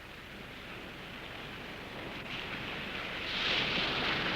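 Ocean surf washing onto a beach: a hiss that swells to a peak about three seconds in and then eases off.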